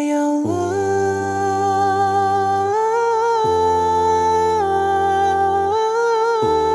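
Background vocal music in a nasheed style: layered voices humming long held chords that shift every second or two over a deep hummed bass, with no instruments.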